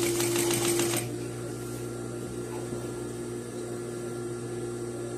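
Sewing machine stitching fast for about a second, then stopping, with a steady hum carrying on underneath.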